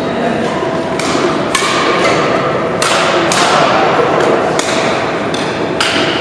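Badminton rackets hitting a shuttlecock in a rally: a string of sharp strikes, roughly one a second, each echoing in a large gym hall.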